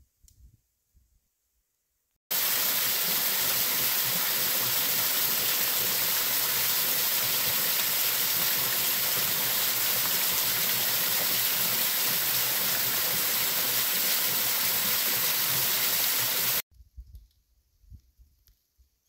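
Small waterfall pouring over a rock ledge into a shallow pool: a loud, steady rush of falling water that starts abruptly about two seconds in and cuts off abruptly near the end. Near silence before it and faint low sounds after.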